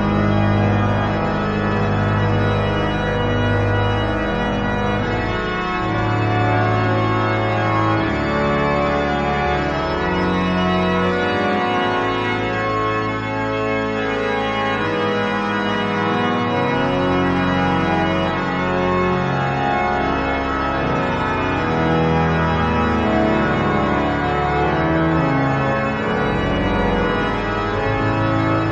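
Pipe organ from a composite sampled organ modelled on Notre-Dame de Paris, playing a loud, many-voiced fugal postlude. Low pedal notes change every few seconds under the moving upper voices.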